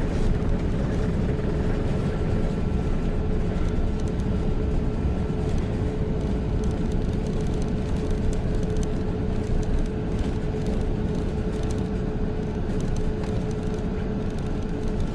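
Cabin noise inside an Airbus A380 during landing: a steady, even rush of airflow and engine noise with a constant low hum.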